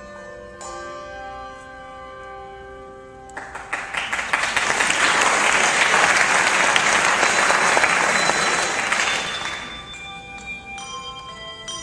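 Handbells ringing sustained notes, then audience applause that swells in about three seconds in, lasts about six seconds and fades out. Near the end the handbells ring again.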